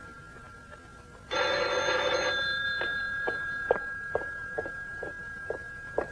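Telephone bell ringing once, a burst about a second long starting just over a second in. It is followed by footsteps, sharp steps about two a second on a hard floor.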